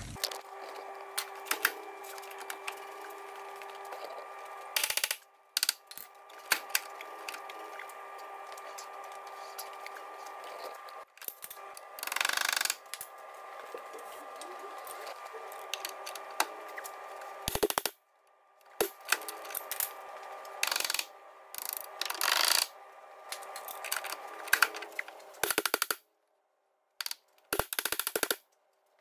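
Hammer blows knocking the seized front lower-arm ball joint of a Ford C-Max down out of its hub, with the arm under load from a suspension-arm puller bar: sharp metal knocks at irregular spacing, with several louder clattering bursts. A faint steady hum runs underneath.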